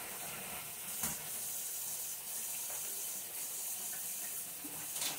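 Chicken pieces deep-frying in hot oil, a steady sizzle, with a light knock about a second in and another near the end.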